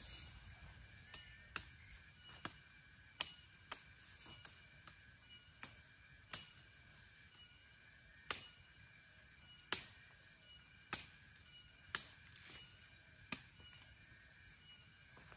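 Irregular sharp woody knocks and cracks, roughly one a second, from a long cut bamboo pole being worked and handled, over a steady high insect drone.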